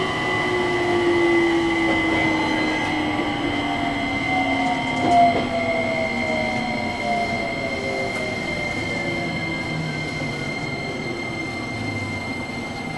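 JR Kyushu 815 series electric train's VVVF inverter and traction motors whining, several tones falling slowly in pitch as the train slows, over a steady high tone and wheel-on-rail running noise.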